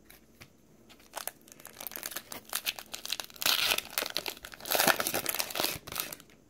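Foil wrapper of a 2018 Panini Score football card pack being torn open and crinkled by hand. The crackling starts about a second in, gets louder in two stretches, and dies away near the end.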